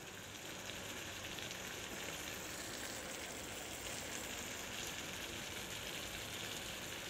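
Beef and broccoli sizzling in a nonstick frying pan, a steady frying hiss that grows a little louder about half a second in.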